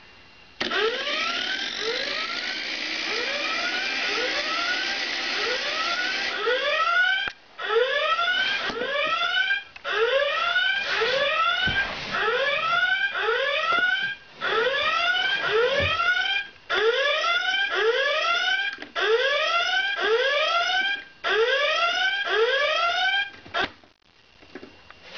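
A propeller alarm clock's electronic alarm beeping: rising chirps about two to three a second, in runs broken by short pauses every couple of seconds. For the first several seconds a steady rushing noise runs under the chirps. The alarm cuts off shortly before the end.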